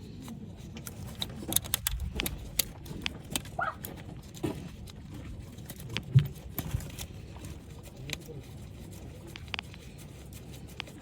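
Irregular light clicks and taps of metal tools and a bolt being worked by hand, fitting a camshaft position sensor's retaining bolt on a V6 engine.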